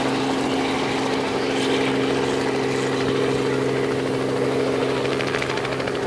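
Robinson R44 helicopter flying past at low altitude, its piston engine and rotor making a steady hum.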